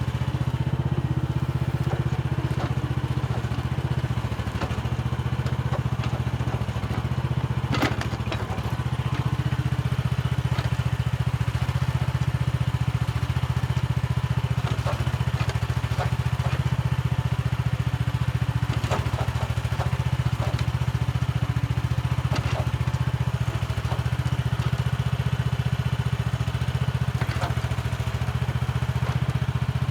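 Petrol-engined mini excavator running steadily under work, with scattered knocks and clatters as the bucket scrapes and breaks up soil.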